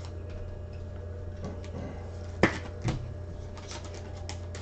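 Trading cards and plastic card holders handled on a table: a sharp click about halfway through and a softer one just after, over a steady low hum.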